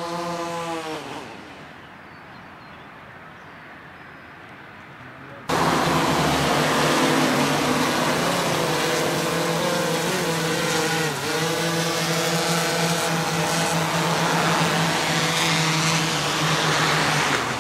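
DJI Inspire 1 Pro quadcopter hovering close by: a loud, steady propeller buzz that starts abruptly about five seconds in, its pitch dipping briefly about halfway through. In the first second, a smaller DJI Phantom's hovering buzz fades out.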